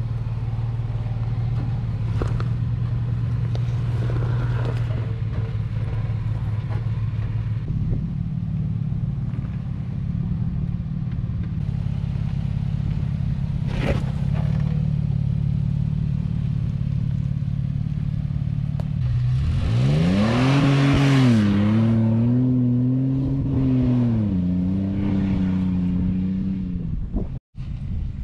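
Toyota Prado 120-series engine running steadily under load on an off-road climb. About two-thirds of the way through it revs up sharply, holds high and wavers for a few seconds, then eases back down. A single knock comes about halfway through.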